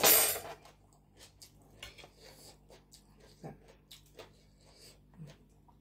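A brief loud rush of noise at the very start, then scattered light clicks of a metal spoon and fork against a plate of food as she eats.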